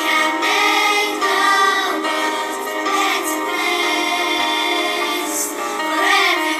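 Primary-school children's choir singing together, in a live performance recording.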